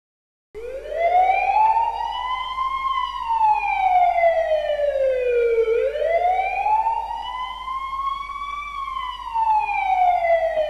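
A wailing siren that starts suddenly about half a second in, its pitch rising and falling slowly, about one rise and fall every five to six seconds.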